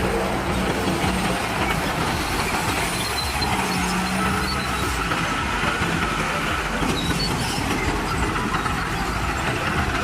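Heavy construction machinery working together: the diesel engines of several earthmoving machines and trucks running at once in a loud, dense, unbroken din, with a low engine drone that swells and fades.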